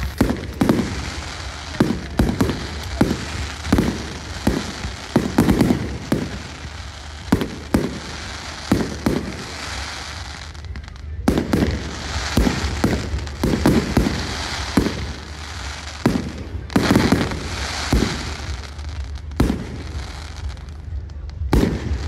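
Aerial fireworks display: a quick, irregular run of bangs, often one or two a second, over a steady hiss, with a short lull about halfway through.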